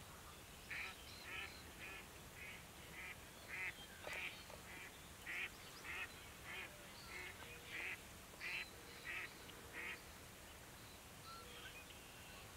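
Mallard quacking: a run of about fifteen short quacks, roughly two a second, that stops about ten seconds in.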